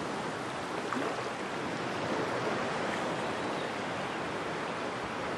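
Sea surf: a steady rush of waves washing in, swelling slightly now and then.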